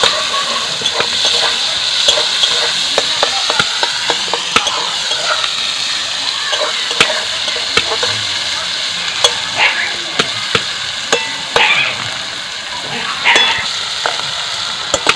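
Sliced onions sizzling in hot oil in a metal wok, with frequent clicks and scrapes of the metal spatula against the pan as they are stirred.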